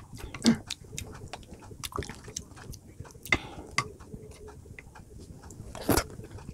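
A person chewing close to the microphone, with irregular soft mouth clicks; louder smacks come about half a second in and near six seconds.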